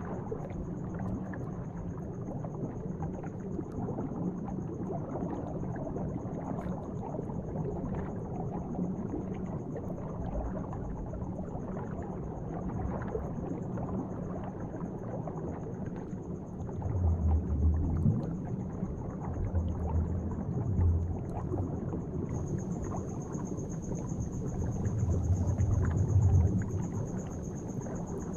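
Bubble sound effect: a dense, continuous underwater bubbling and gurgling, with three deeper, louder swells in the second half.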